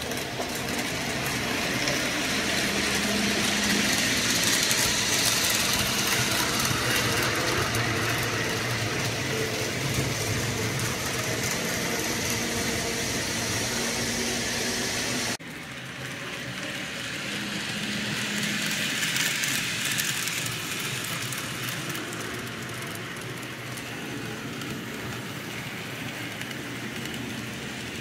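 Model train running on the layout's track: a steady rolling rumble with a faint motor hum. It swells and fades twice and breaks off sharply about halfway through.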